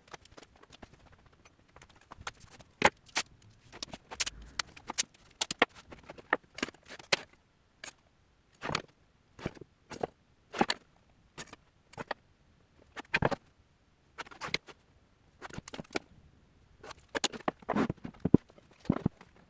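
Irregular knocks, taps and short scrapes of tools and parts being handled in a workshop, about one to three a second, with short pauses between them.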